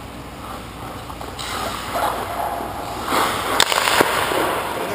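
Hockey goalie's skate blades and pads scraping across the ice as he pushes across the crease and drops into the butterfly, the scraping building about a second in. Two sharp knocks come near the end.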